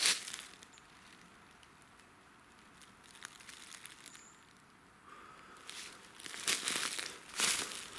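Footsteps crunching through dry leaf litter. There is one step at the start, then a pause of about five seconds with only faint rustles, and then the walking resumes at about a step a second.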